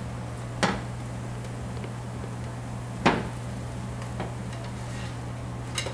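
Two sharp clacks of kitchenware, one just under a second in and one about three seconds in, with a fainter one near the end, over a steady low hum.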